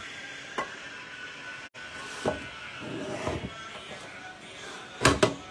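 Faint background music, with a few short knocks and clinks from the pots and utensils on the stove. The loudest clatter comes near the end.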